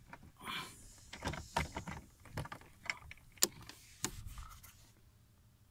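Scattered small clicks and rustles of a handheld OBD2 code scanner and its cable being handled and plugged in, with one sharper click about three and a half seconds in; the noises die away near the end.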